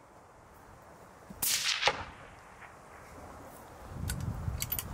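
A single 6mm BR rifle shot about a second and a half in: one sharp crack with a short tail that falls in pitch.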